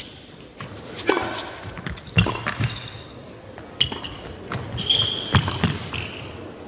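Tennis rally on an indoor hard court: a string of sharp racquet-on-ball hits and ball bounces echoing in the arena, with brief high shoe squeaks on the court surface about four to five seconds in.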